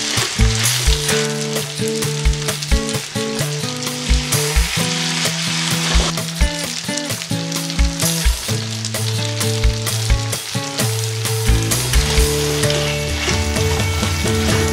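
Spaghetti in tomato sauce sizzling in a hot frying pan as it is tossed and stirred, over background music with a steady beat.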